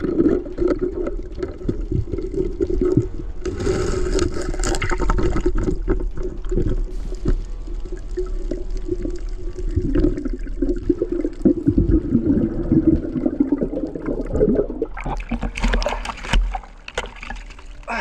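Muffled underwater noise from a diver's camera at a spearfishing dive: water movement and bubbling with scattered knocks and bumps, and a brighter hiss of water or bubbles from about 15 seconds in.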